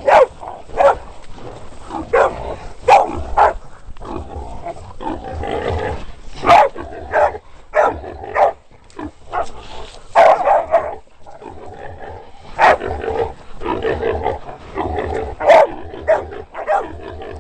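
Catahoula hunting dogs barking over and over: loud single barks at irregular intervals, some in quick pairs, with lower noise between them.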